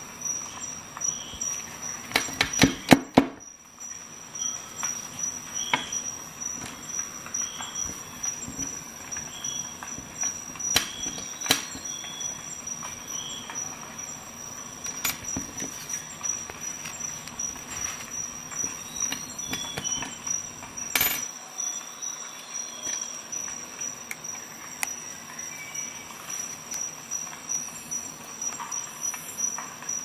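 Woven-nylon multitool sheath handled close up: rustling and scraping of the fabric, with sharp clicks and knocks, a quick cluster of them about two to three seconds in and a few single ones later. A steady high whine runs underneath.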